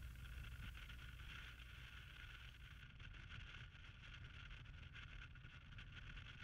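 Near silence: only a faint, steady low rumble and hiss.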